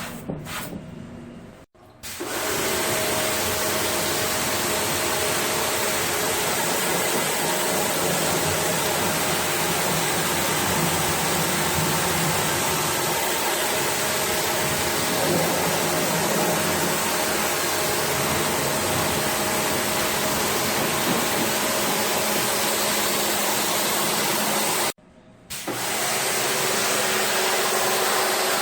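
A motor-driven cleaning machine running with a steady hiss. It starts about two seconds in, cuts out for about half a second near the end, then runs again.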